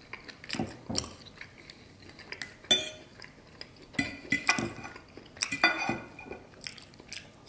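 Steak knife and fork scraping and clinking against a ceramic plate while cutting a seared steak: several sharp clinks with a brief ring, the loudest about halfway through and again near the end.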